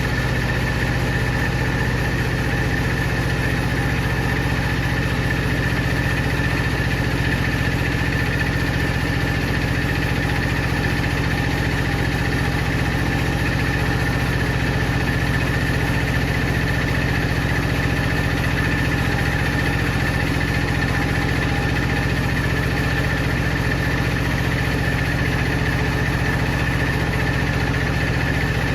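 Power saw machine running steadily, a constant low hum with a steady high whine over it.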